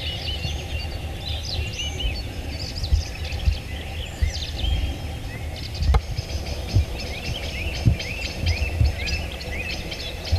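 Songbirds singing, many short overlapping chirps and whistles, over a low rumble with several dull thumps, one with a sharp click about six seconds in.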